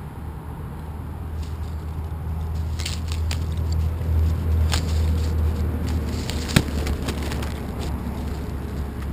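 Crackling and scraping clicks, about three to seven seconds in, with one sharp click near seven seconds, as a Staffordshire/pitbull mix noses and mouths at split tree bark right beside the microphone, over a low steady rumble.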